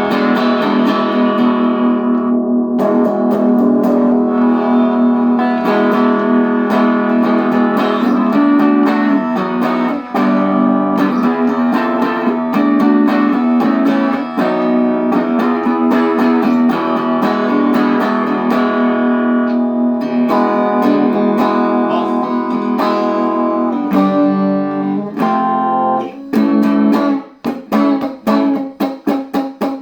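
1985 made-in-Japan Fender Performer electric guitar played through a Peavey Valve King Royal 8 valve amp with no pedals: ringing chords and single notes, turning to short, choppy chords with stops between them near the end.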